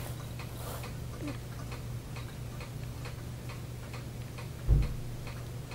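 Steady, regular ticking at about four ticks a second over a low hum, with a single thump near the end as the loudest sound.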